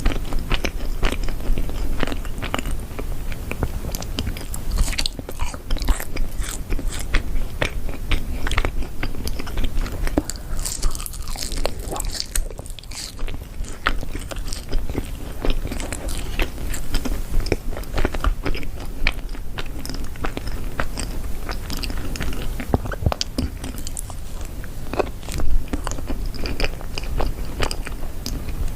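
Close-miked eating of yakgwa, Korean fried honey cookies: repeated bites and crunchy chewing with many small crackles.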